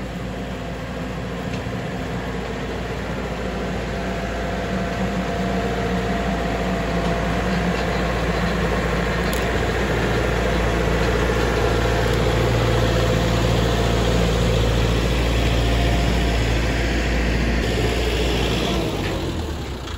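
Kioti compact tractor's diesel engine running as the tractor drives up and past, growing louder towards the middle and dropping off near the end.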